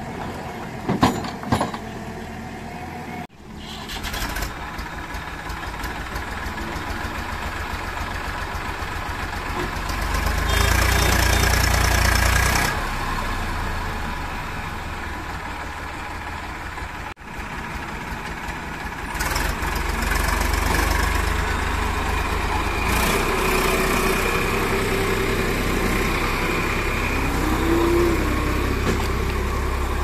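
Diesel engines of a JCB 3DX backhoe loader and an Eicher tractor running, with a couple of knocks about a second in as the backhoe bucket tips mud and stones into the tractor's trolley. The engine noise swells for about two seconds in the middle, and later the tractor pulls the loaded trolley away.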